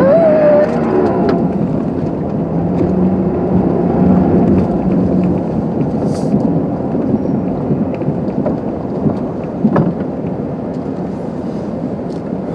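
Car being driven, heard from inside the cabin: a steady low rumble of engine and road noise, with scattered faint ticks and a brief wavering tone at the very start.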